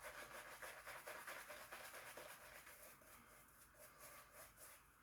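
Faint scratchy brushing of a boar-bristle shaving brush working lather, about four strokes a second, fading over the last couple of seconds.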